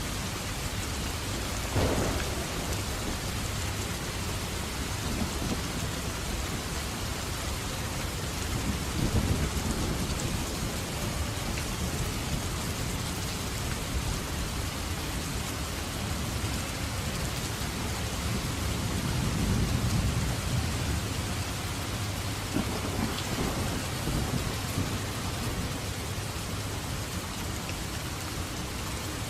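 Steady heavy rain with thunder: a sharp crack about two seconds in, then low rolling rumbles around nine and twenty seconds in.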